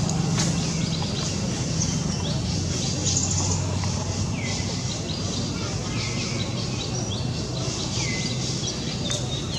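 Wild birds calling, a string of short calls that each sweep down in pitch, about one every second or two, over a steady low hum.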